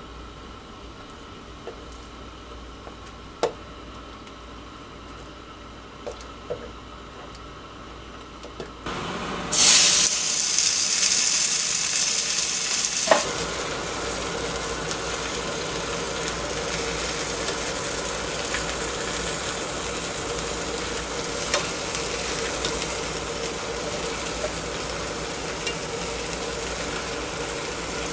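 Metal tongs tap lightly on a frying pan of egg-soaked baguette slices. About nine seconds in, a loud hiss starts as the two-burner cassette gas stove is lit, ending in a click about four seconds later. After that a steady hiss of the gas flame and the batter sizzling over low heat goes on.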